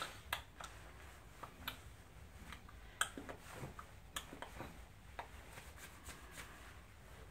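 Quiet, irregular taps and rustles of hands clapping, slapping and brushing against each other and against a jacket while signing in sign language.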